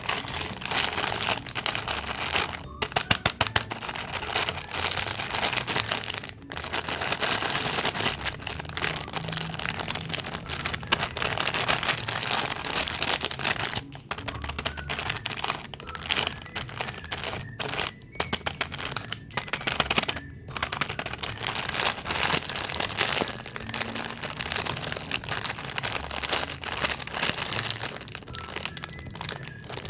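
Snack-cake and cookie wrappers crinkling and crackling as they are handled and unwrapped by hand, almost without a break, with a few short pauses.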